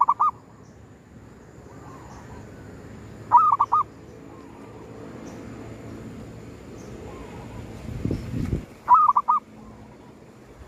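Zebra dove (perkutut) cooing: three short call phrases, each a sharp opening note running into three quick rounded coos, about three and six seconds apart. A lower, deeper coo comes shortly before the last phrase.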